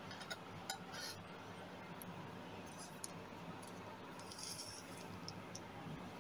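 Faint light clicks and clinks of small lead pieces and tweezers tapping in a plastic lid as the pieces are picked out, several in the first second and a few more later, over a steady low hum.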